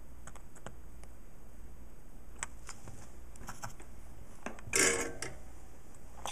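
Small clicks and light clatter from handling a small circuit board and soldering tools on a work mat, with one brief, louder rustle about three-quarters of the way in.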